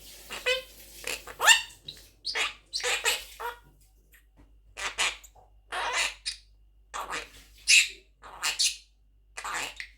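Quaker parrot (monk parakeet) giving a string of short, high calls and chatter, about a dozen in all, with a short pause a few seconds in.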